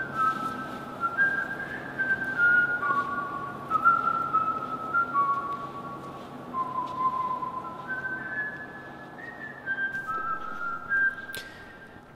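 A person whistling a slow melody in single held notes that step up and down in pitch. There is a sharp click near the end.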